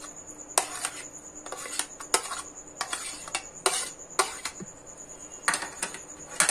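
Steel spoon scraping and knocking against a plastic bowl and a pan while scooping cooked grated apple into milk: a string of irregular clicks and short scrapes.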